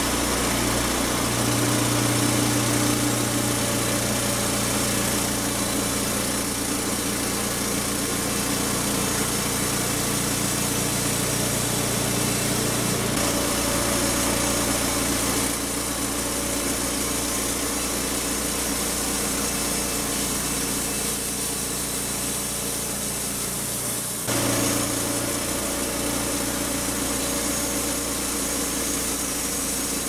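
Homemade band sawmill running steadily, its band blade cutting lengthwise through a large squared log. The level shifts abruptly about 15 and 24 seconds in.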